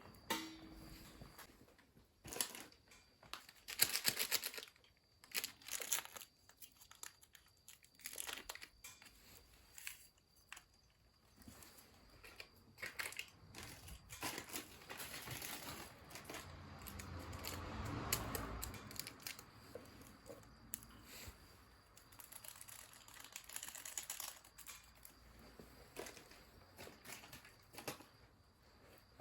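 Irregular rustling and crinkling with scattered clicks and knocks, as of things being handled, with a louder cluster about four seconds in and a swelling rush of noise a little past halfway.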